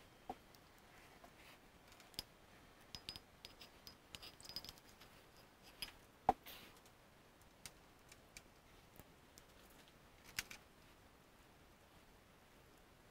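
Scattered light clicks and taps of a plastic PC water-cooling pump and reservoir unit and its tubing being handled, with the sharpest knock about six seconds in and a short cluster of clicks near the ten-second mark.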